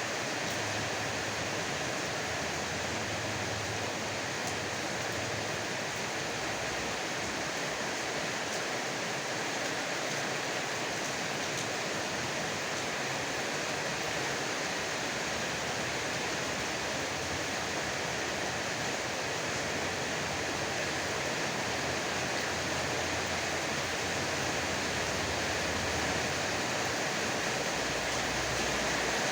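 Heavy rain falling steadily, a dense even hiss that swells slightly near the end.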